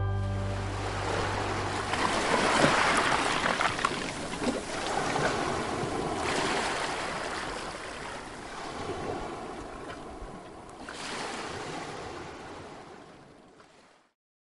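Sea waves washing onto a pebbly shore, swelling in surges a few seconds apart, then fading out near the end.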